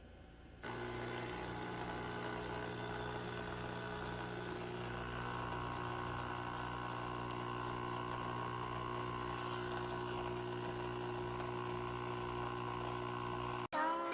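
Capsule espresso machine's pump buzzing steadily while it brews, starting about half a second in and cutting off abruptly near the end.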